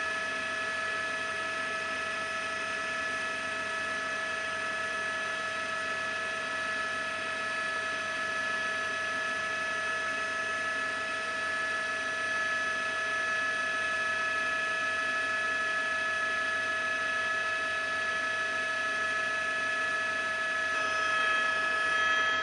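Steady whine of a helicopter's turbine engine: several fixed high tones over an even hiss.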